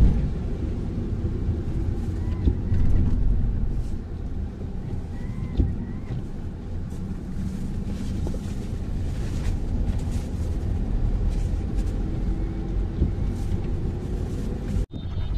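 Tata Altroz hatchback driving on a wet road, heard from inside the cabin: a steady low rumble of road and engine noise, with a brief knock about five and a half seconds in. The sound cuts out for a moment near the end.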